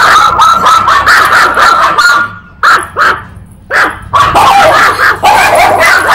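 Small Chihuahua barking loudly and rapidly, a fast run of high yapping barks broken by two short pauses in the middle.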